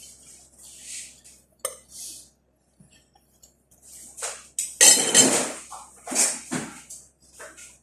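Metal cutlery clinking and scraping against a plate, a string of short scrapes with the loudest, longest one about five seconds in.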